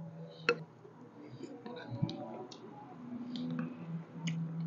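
Eating sounds at a table: a scatter of sharp light clicks of chopsticks against bowls, over a faint steady hum.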